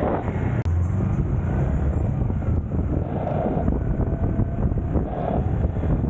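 Wind rushing over the microphone on a moving motorcycle, mixed with engine and road traffic noise. The sound cuts out for an instant a little over half a second in.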